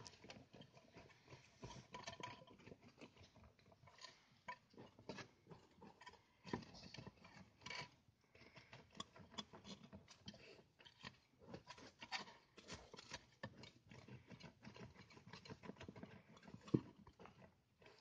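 Border terrier eating with its head down in a dish: faint, irregular crunching and clicking, with one sharper knock near the end.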